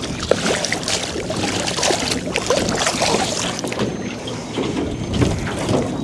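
Wind and choppy water around a small boat, with scattered small knocks and rustles.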